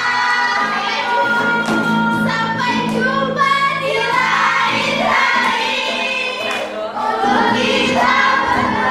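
Music with a group of voices singing together.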